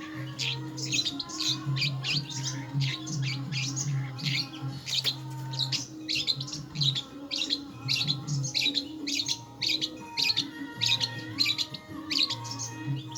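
Long-tailed shrike (cendet) singing: a fast, unbroken string of short, sharp chirps, about three a second. A low hum comes and goes underneath.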